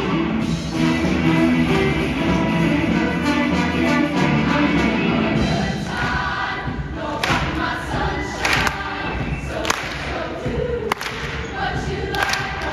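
Live show choir music in a large hall: band and voices hold chords through the first half, then sharp percussive hits punctuate the music from about six seconds in.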